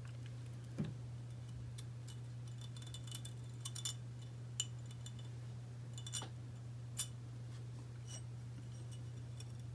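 Faint, scattered light clicks and ticks as a piston oil-ring expander is worked into the ring groove of a Wiseco aluminium piston by hand, over a steady low hum.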